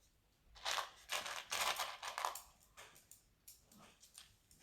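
Plastic LEGO Technic pieces being handled and rummaged through, rustling and clicking in short bursts, busiest in the first half and fainter near the end.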